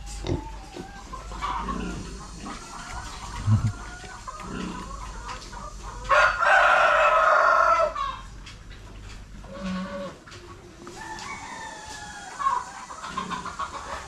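A rooster crows once, loudly, about six seconds in: one long call of nearly two seconds that drops slightly in pitch. Fainter chicken calls and clucks come before and after it.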